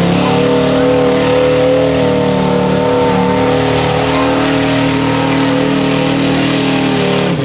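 Lifted four-cylinder pickup truck's engine held at high revs at a nearly steady pitch as the truck drives through a mud pit.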